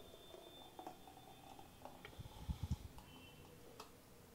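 A thick smoothie being poured slowly from a steel blender jar into a glass, faint, with a few soft low thuds about halfway through.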